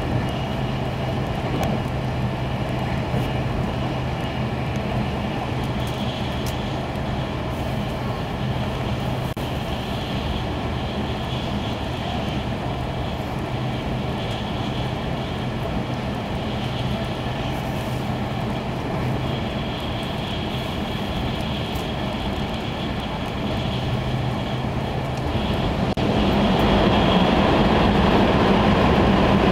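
Interior cabin noise of an E2 series Tohoku Shinkansen train running at speed: a steady rumble with a low hum. It grows louder near the end as the train enters a tunnel.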